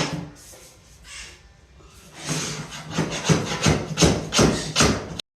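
A sharp knock, then a run of quick scraping strokes, about three a second, from hand work on luxury vinyl plank flooring, stopping suddenly near the end.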